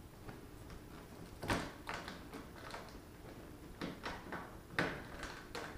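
A snowmobile's plastic side cowling being snapped back into place: a series of separate plastic knocks and clicks as the panel is pressed and latched onto the machine.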